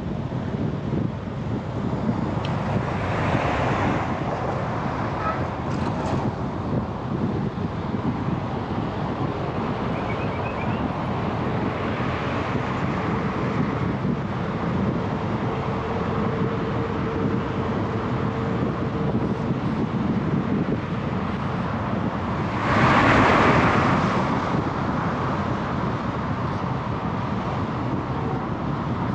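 Road traffic on a busy highway: a steady rumble of vehicles with wind on the microphone, vehicles passing close a few times, the loudest about three-quarters of the way through.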